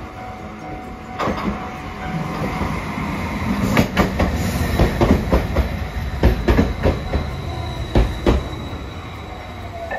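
Hiroshima Electric Railway 5000 series Green Mover low-floor articulated tram pulling in close by, its running rumble building as it nears. Its wheels give one sharp clack about a second in, then a rapid run of clacks from about four to eight seconds in as it passes over the rail joints.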